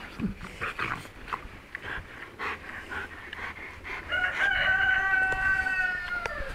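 A rooster crows once, a long held call starting about four seconds in that sags in pitch at the end. Before it, short scattered noises from a dog and a pig at play.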